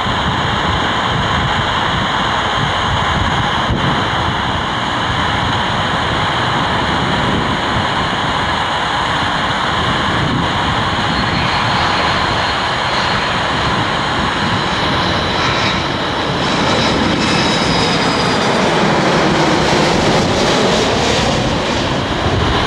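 Airbus A330 twin-jet airliner on landing approach with gear down, its engines making a continuous rumble. A faint high whine slowly falls in pitch, and the sound swells with a sweeping whoosh as the jet passes overhead near the end.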